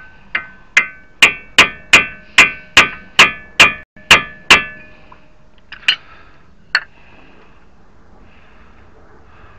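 Hammer blows on a chisel, staking the axle nut onto the front CV axle shaft. About a dozen sharp, ringing metal strikes come in a quick steady run, then two more single blows after a short pause.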